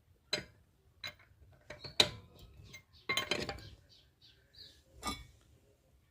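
Metal clanks and clinks of a wheel spanner and metal extension bar being worked on a car's wheel nuts: a handful of separate sharp strikes, the loudest about two seconds in, with a quick cluster a little after three seconds.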